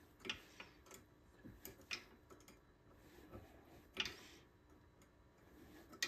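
A few faint, scattered small clicks and taps of a hand tool working inside the motor's end housing, tightening the centrifugal start switch's collar onto the rotor shaft; the clearest click comes about four seconds in.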